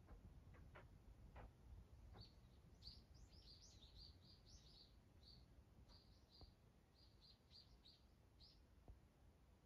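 Faint Japanese bush warbler (uguisu) calling: a quick, uneven run of short high notes that starts about two seconds in and goes on almost to the end, over a low steady room hum. A few soft ticks come just before the calls begin.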